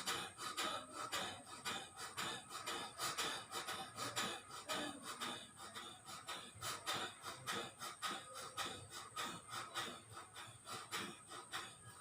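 Kapalbhati breathing: a person's short, forceful exhalations through the nose, repeated at an even pace of about two to three puffs a second.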